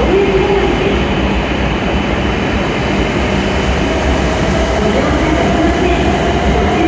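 Steady din of a Shinkansen station platform: a standing E7 series train's equipment running, with faint voices in the background.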